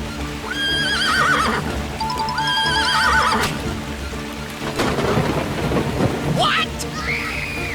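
Cartoon soundtrack: background music over a rainstorm sound effect, with two rising, warbling cries in the first three seconds, a crash of thunder about five seconds in, and another wavering cry near the end.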